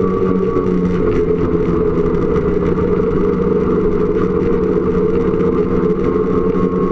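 Snowmobile engine running at a steady speed on the trail, with a thin high whine that fades about a second in and comes back near the end.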